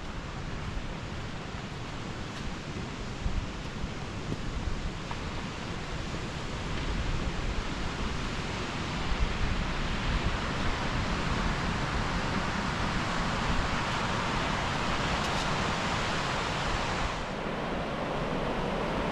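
Sea waves breaking and washing up the beach, with wind rumbling on the microphone. The wash swells louder towards the middle, then its hiss drops away abruptly near the end.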